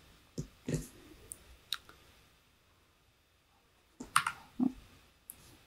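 Light computer-key clicks: a few scattered near the start and a quick cluster about four seconds in, as presentation slides are stepped through.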